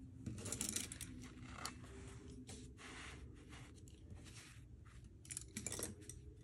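Paintbrushes and a painting board being moved about on a tabletop: light clicks and clatter of the brush handles with some rustling, in bursts about half a second in, around three seconds in and near the end.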